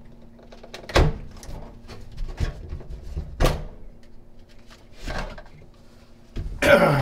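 Garbage disposal being twisted by hand in its metal sink mounting ring: a few sharp knocks and clicks as the mounting lugs turn, then a louder clatter with a falling ring near the end as the unit comes free.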